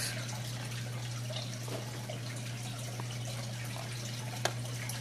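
Steady low electrical hum with faint hiss, and one sharp click about four and a half seconds in.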